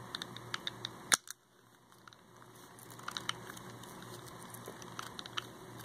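Faint scattered clicks and taps from a twelve-sided plastic fidget toy being handled, a thumb working its soft silicone bump face. One sharper click comes about a second in.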